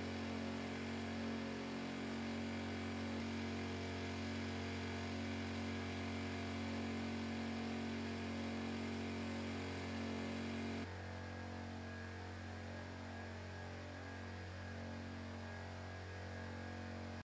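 A steady electrical-sounding hum made of several held tones with a hiss over it; about eleven seconds in it steps down abruptly, quieter and without the hiss.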